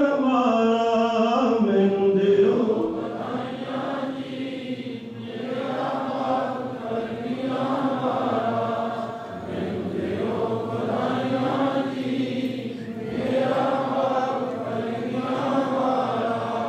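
Voices chanting together in long, slow, drawn-out phrases with brief breaths between: Sikh devotional chanting, led at the microphone.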